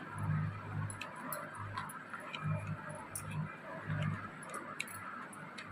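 Hair crimping iron being clamped and released along a section of hair: scattered light clicks and soft knocks at an uneven pace.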